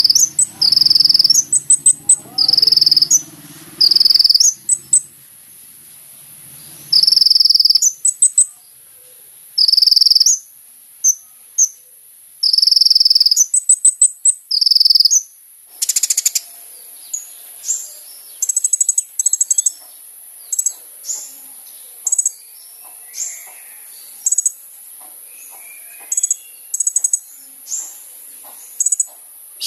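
Kolibri ninja sunbird singing: loud buzzy trilled phrases about a second long repeat through the first half, then give way to many short, high chirps. A steady high insect hiss runs underneath.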